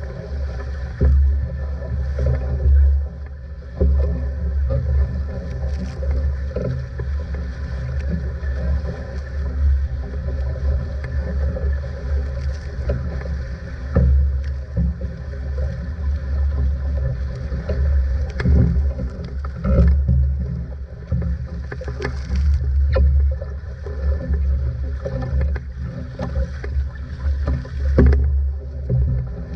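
Outrigger sailing canoe moving fast through choppy water: water rushing and splashing along the hull, with wind buffeting the microphone in a loud, pulsing low rumble. Now and then there are sharp slaps of waves and spray.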